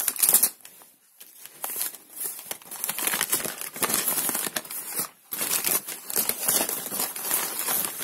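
Crumpled paper wrapping rustling and crinkling as hands unwrap a potted plant, with short lulls about a second in and just after five seconds.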